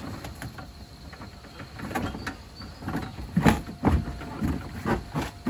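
A few dull knocks and scrapes as an empty plastic IBC-tote grow bed is pushed and pressed down into its steel cage frame onto timber supports, with the knocks coming about two seconds in and again past the middle.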